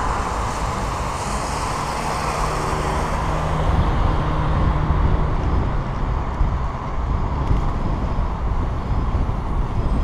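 Road traffic heard from a moving bicycle: continuous rumble of wind on the microphone and tyre noise, with cars passing in the lanes alongside. A passing car's steady engine hum stands out from about two to six seconds in.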